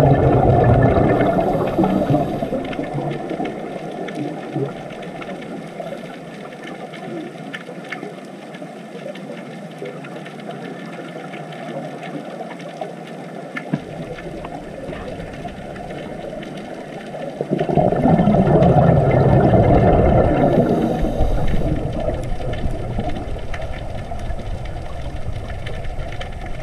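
Underwater ambience: a low, muffled rush and rumble of water that swells loud at the start and again about two-thirds of the way through, with a quieter stretch in between.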